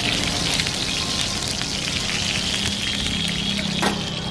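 Steady crackling sizzle of a paratha frying on a hot iron tawa, with a low steady hum underneath and a light knock near the end.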